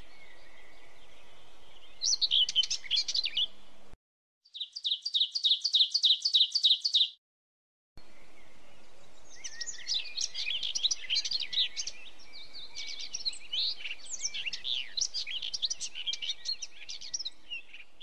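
Small birds chirping and calling, with one bird giving an even trill of about four notes a second in the middle, and several birds chattering together in the second half. The sound cuts out abruptly twice, for under a second each time.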